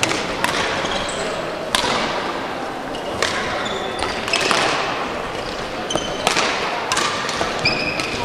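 Badminton rally: sharp cracks of rackets hitting the shuttlecock every second or so, with short high squeaks of shoes on the court floor and voices in the background.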